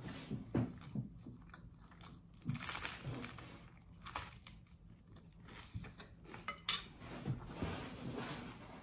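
Close-miked eating sounds: bites into crunchy toasted garlic bread and chewing, in irregular short bursts, with a fork clinking against the plate.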